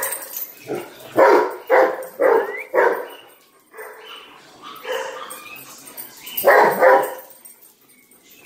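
Dog barking: a quick run of four barks about a second in, some quieter barks a few seconds later, and two loud barks near the end.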